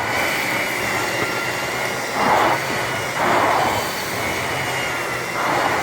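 Miele S4212 canister vacuum cleaner running with a steady motor whine, with three brief swells of rushing air about two, three and five and a half seconds in.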